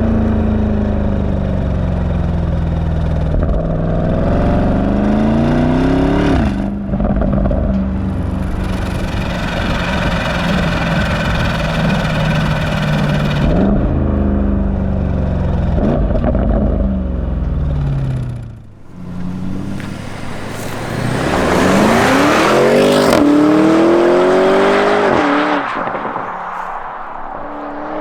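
Porsche Cayenne GTS's 4.0-litre twin-turbo V8 with sport exhaust accelerating through the gears. The engine note climbs, then drops sharply at each upshift. After a brief lift-off there is one hard pull that rises steeply and eases off near the end.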